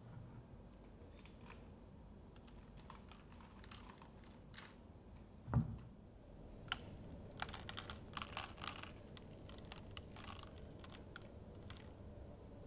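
Faint scattered ticks and crackling taps of coconut sugar being sprinkled over unbaked scones on a silicone baking mat, thickest in the second half, with one dull thump a little before halfway.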